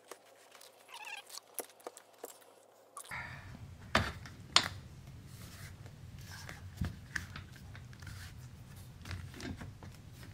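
Handling noise as an adjustable bed's electric actuator motor is fitted into its hinge bracket on the metal frame: scattered sharp clicks and knocks of metal and plastic, the loudest two close together about four seconds in, over faint room hiss.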